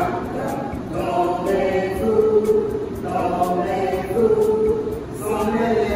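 A group of voices singing together in held notes, phrase by phrase, like a small choir.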